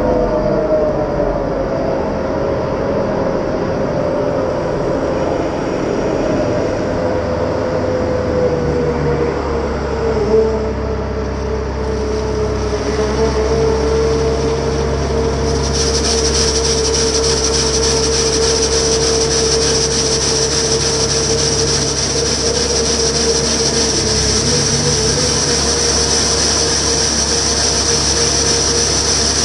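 Huddig 1260c backhoe loader's Cummins diesel engine and hydraulics running steadily, with a whine that drops in pitch in the first few seconds and then holds. From about halfway a loud hiss joins in as the hydraulic rotating broom sweeps gravel on the tunnel floor.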